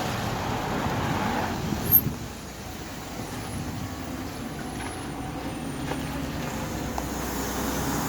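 City bus engine and road noise heard from inside the moving bus, a steady low rumble, with one sharp click a little before two seconds in.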